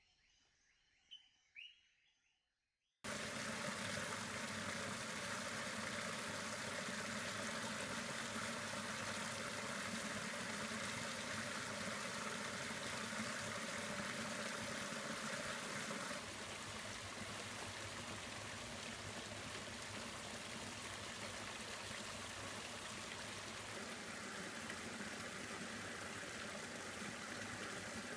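A small stream splashing and trickling over mossy rocks in a steady rush of water. It starts suddenly about three seconds in and turns a little quieter halfway through. Before it come two faint bird chirps.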